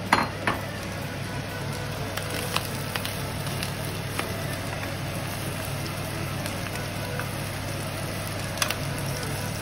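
Shredded boiled duck meat with peppers and onions sizzling as it fries in a pan, over a steady low hum. A wooden spatula knocks and scrapes against the pan a few times, most sharply just after the start and again near the end.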